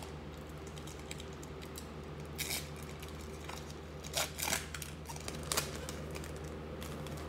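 Foil wrapper of a Panini Chronicles trading-card pack crinkling and tearing as it is pulled open by hand, in short bursts about two and a half, four and five and a half seconds in, over a steady low hum.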